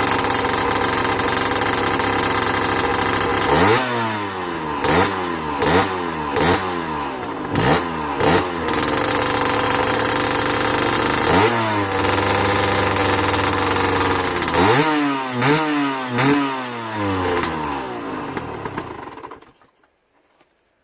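Sherco 50cc two-stroke dirt bike on its stock exhaust, revved in a string of quick throttle blips. It holds steady revs for a few seconds, is blipped again several times, and then the engine cuts off near the end.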